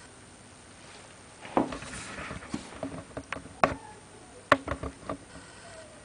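Camera handling noise as the camera is moved: a run of irregular knocks and clicks with a brief rustle, starting about a second and a half in and stopping about a second before the end.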